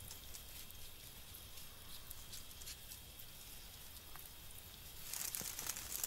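Faint scratching and light ticking from an Indian crested porcupine moving about. About five seconds in, a louder dry crackling rustle of its quills begins.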